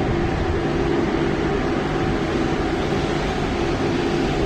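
Passenger coaches rolling past along a platform: a loud, steady rumble of wheels on rail with a low, even hum.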